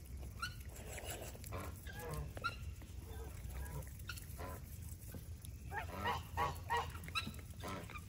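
Geese giving short, soft honks off and on, faint and scattered, with a small flurry of calls about six seconds in.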